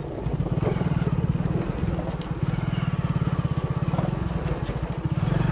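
Small motorcycle engine running steadily at low speed, its exhaust putting in quick even pulses while the bike rides along a sandy dirt track.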